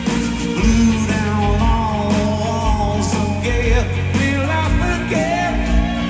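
Live rock band playing amplified through a concert PA, with a singer's melody line over a steady bass note and kick drum.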